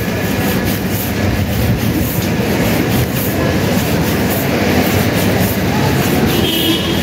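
Storm wind buffeting a handheld phone's microphone in a loud, steady rumble.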